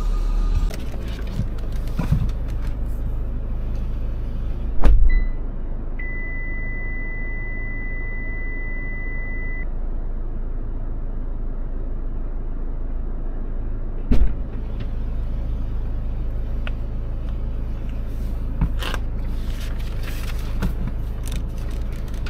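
Stationary car idling, heard from inside the cabin as a steady low hum. A sharp knock about five seconds in is followed by a steady high electronic beep lasting about three and a half seconds, and a second knock comes about fourteen seconds in.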